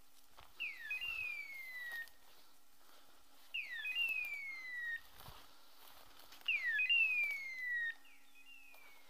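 A dog's hunting beeper collar giving its raptor-cry point signal: a short upward chirp, then a long falling cry, repeated at an even pace about every three seconds. This signals that the dog is holding a point. Faint footfalls in the brush come between the calls.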